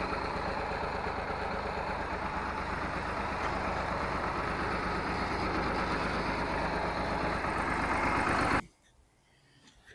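Massey Ferguson 231 tractor's three-cylinder diesel running steadily in gear, turning a jacked-up rear wheel that spins freely off the ground. The sound cuts off abruptly near the end.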